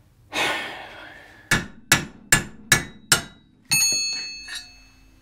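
A hammer striking metal: five quick blows about 0.4 s apart, then a heavier strike that leaves the metal ringing, after a short clatter at the start.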